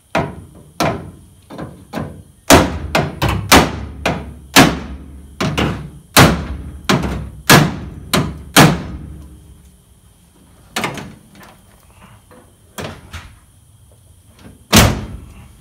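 Steel body hammer striking the sheet-metal body panel of a 1967 El Camino, knocking it over to close up a gap. About twenty sharp, ringing blows come at roughly two a second for the first nine seconds, followed by a few scattered taps and one last loud blow near the end.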